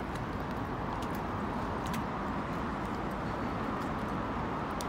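Steady outdoor hum of distant city traffic, with a few faint ticks.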